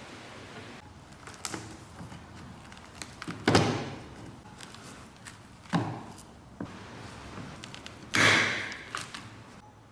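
Three heavy thumps a couple of seconds apart, with light clicks and taps between them, as parts of an old hand truck are knocked and handled.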